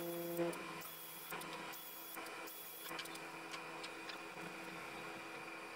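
Sped-up workbench handling sounds: light clicks and three short rustling scrapes as tools and small parts are moved about, over a faint steady hum. A louder hum drops away about half a second in.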